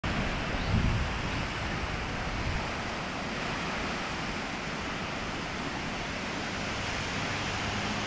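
Steady rush of a river and waterfall in a rocky gorge below, with wind buffeting the microphone in the first second or so.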